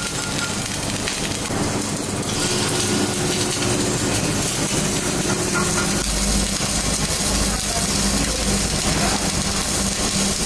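Electric arc welding: a steady crackling hiss from the arc over a steady machine hum, with a deeper rumble joining about six seconds in.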